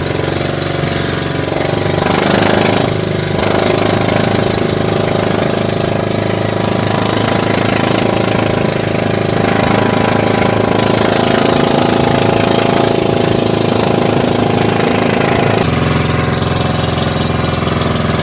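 Outrigger boat's engine running steadily under way, with water and wind rushing past the hull. A louder rush comes about two seconds in, and the engine note changes near the end.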